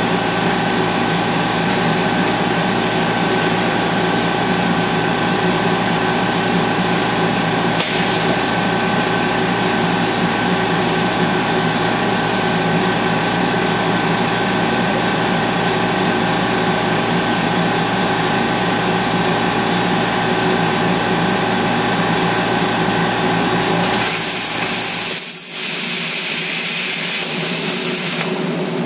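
A motor or engine running steadily at one pitch; about 24 seconds in, a loud hiss takes over.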